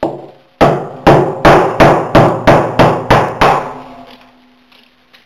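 A hammer striking a hard object: one blow, then a quick run of about nine blows at roughly three a second. Each blow rings on, with a low hum that hangs on for a second or so after the last blow.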